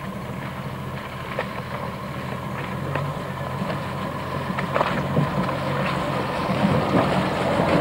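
Jeep engine running at low revs as the vehicle crawls over a rough dirt track, growing louder as it approaches, with scattered knocks and rattles from the body jolting over the ruts.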